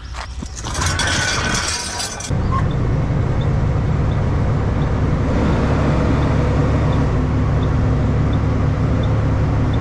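Western Star semi truck's diesel engine running steadily, after a couple of seconds of clattering and knocks. The engine comes in suddenly and loud about two seconds in.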